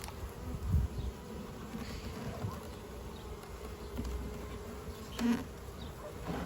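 Honeybees buzzing in a top-bar hive, a steady hum, with two brief knocks from handling the hive, about a second in and again near the end.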